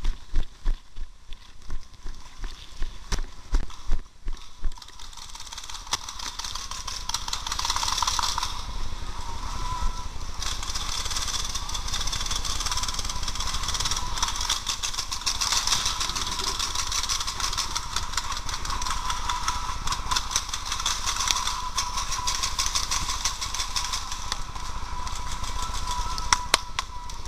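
Running footsteps thudding for about five seconds, then a steady rushing noise with a faint whine.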